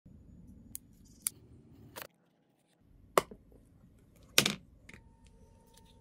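Handling clicks and clacks of a crimping tool set's plastic assortment case and metal crimping pliers: about six separate sharp knocks, the loudest a short clatter about four and a half seconds in.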